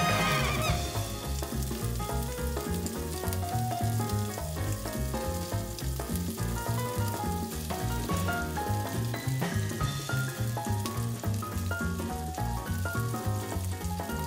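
Chunks of badger meat and fat sizzling and frying in a hot cast-iron skillet, with tongs stirring them now and then. Background music with a bouncing bass line plays underneath.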